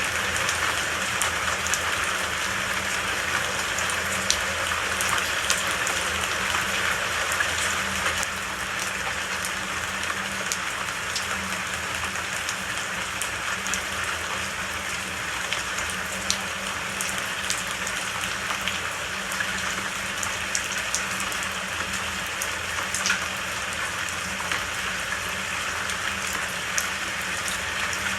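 Steady rain falling, an even hiss with scattered sharp drop hits, over a faint low steady hum.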